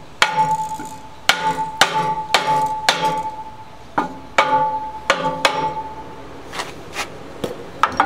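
A hammer knocking on a wooden block held against the cement mixer's pulley, driving the pulley onto its shaft over the keyway. About a dozen uneven knocks, the strongest in the first half and lighter ones near the end, with a steady metallic ring hanging on under the blows.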